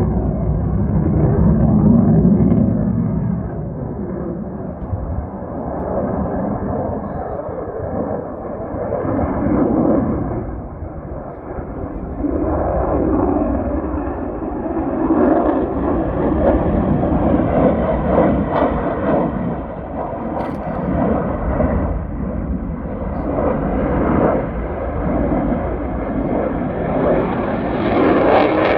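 F-35 fighter jet in flight, a continuous rumbling jet noise that swells and eases several times while its upper edge slowly rises.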